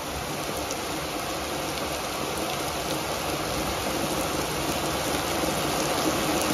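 Heavy storm rain pouring steadily: a dense, even hiss that grows slightly louder.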